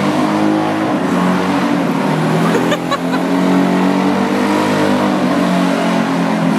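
Holden Gemini's freshly built 360ci V8, held at high revs with a slightly wavering pitch during a burnout, the rear tyres spinning against the road.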